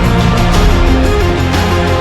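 Background music with a steady beat and a melody stepping between notes.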